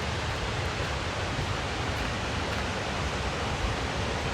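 Hjálparfoss waterfall rushing steadily: an even wash of falling water with a deep low rumble beneath it.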